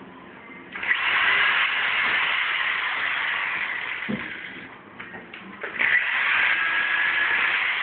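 Cordless drill running under load as it bores rivet holes through the aluminium frame and angle. There are two runs, the first about four seconds long, with a few short knocks between them.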